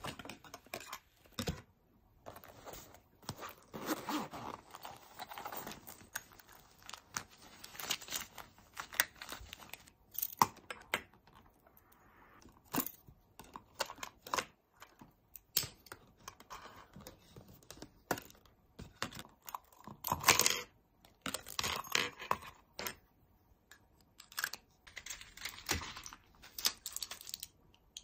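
Small goods handled and unpacked by hand on a table: irregular rustling and crinkling of packaging and tags, with light clicks and clinks from zipper pulls and a metal clip.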